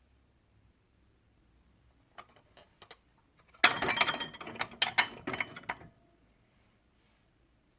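A few light clicks, then about two seconds of rapid, dense clicking and rattling from small hard objects being handled.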